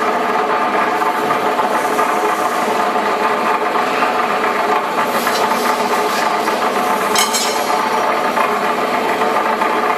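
Steel rod straightening machine running, its rotating straightening drum giving a steady mechanical hum with a continuous metallic rattle. A few short, sharp metallic scrapes come about halfway through and again near the three-quarter mark.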